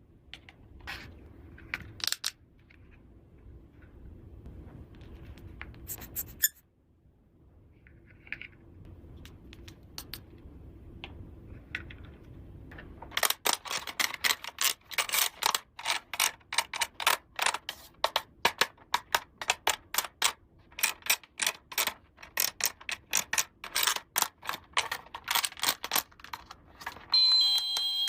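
Small plastic toy pieces being handled, clicked and tapped: scattered clicks at first, then a quick run of sharp clicks and taps from about halfway through. Near the end an electronic beeping starts.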